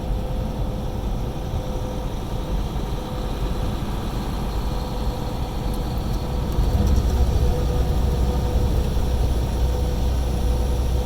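Semi-truck cab noise at highway speed: steady low engine and road rumble, growing louder about two-thirds of the way through, with a faint steady hum.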